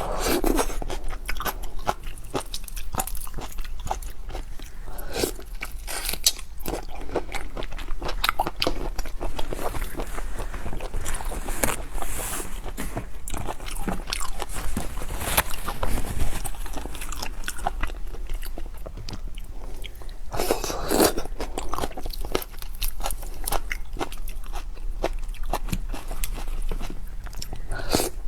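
Close-up sound of a person eating seafood: irregular crunching, biting and wet chewing, with many sharp crackles throughout.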